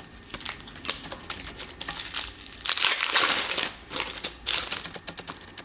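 Foil trading-card pack wrapper crinkling as it is torn open and handled, with scattered crackles and a denser, louder burst of crinkling about three seconds in.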